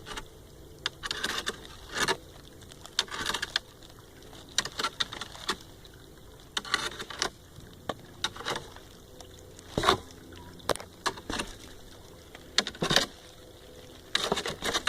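Footsteps and rustling through brush and leaf litter: irregular crunches and scrapes, with a sharp crack about ten seconds in.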